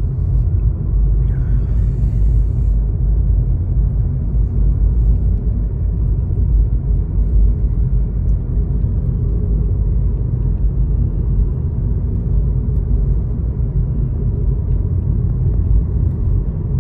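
Steady low rumble of road and wind noise from a 2013 Nissan Leaf electric car driving, with no engine note.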